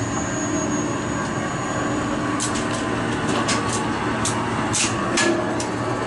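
Lift machine-room machinery running with a steady mechanical hum and whir, with scattered sharp clicks from a little over two seconds in.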